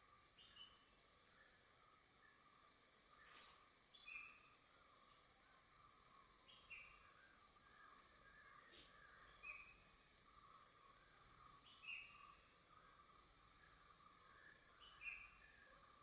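Faint outdoor insect chorus, a steady high shrill drone, with a bird giving a short falling call every few seconds, six times in all. Two faint clicks are heard, one about three seconds in and one near the middle.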